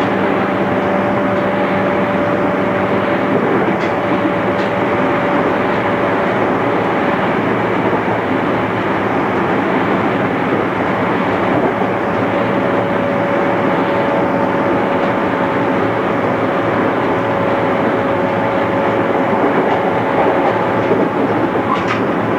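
JR East 211 series electric train running at speed, heard from inside the car: a steady rolling noise with a thin steady whine that fades out and comes back, and a few faint clicks from the rails.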